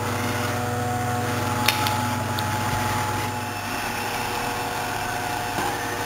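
Samsung robot vacuum running: a steady hum of its fan and brush motors, with one short click about a second and a half in.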